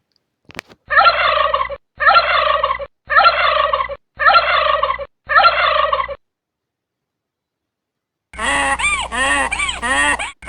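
Domestic turkey gobbling five times in a row, each gobble about a second long with short gaps between. After a pause, a rapid run of repeated animal calls starts near the end.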